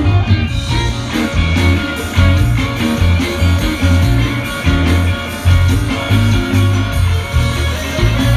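Electric blues band playing live: electric guitar over a steady bass line and drums, in an instrumental stretch of the song with no vocals.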